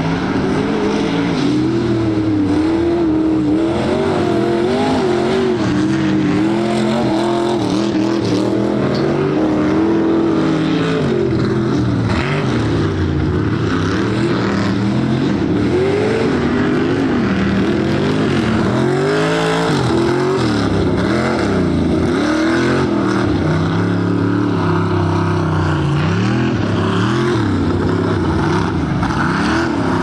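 A competition truck's engine revving hard and easing off over and over, its pitch swinging up and down repeatedly as it works through a tuff truck course.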